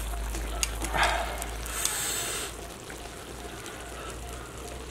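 Light clicks and handling noises of chopsticks against a wooden dish as food is taken and eaten. A short noisy burst comes about a second in, and a brief hiss follows about two seconds in.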